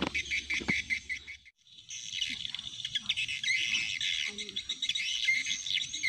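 Wild birds chirping and singing in a dense chorus of high, repeated calls, with a brief break about a second and a half in.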